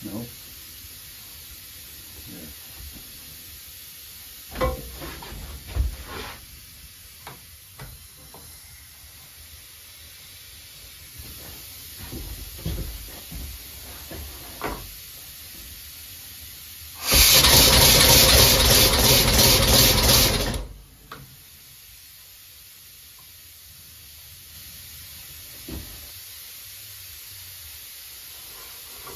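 Compressed air hissing loudly for about three and a half seconds past the middle, with a slight rapid flutter, then cutting off. Before it come scattered clicks and knocks as the air hose and fittings are handled.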